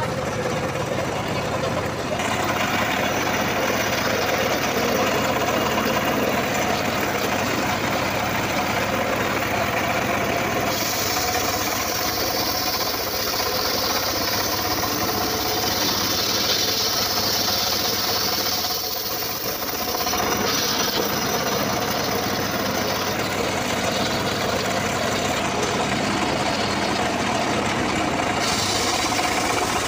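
Homemade engine-driven circular saw running steadily while its blade rips a teak log lengthwise. The engine keeps up a continuous knocking hum, and a harsher, hissing cutting sound rises over it through the middle stretch.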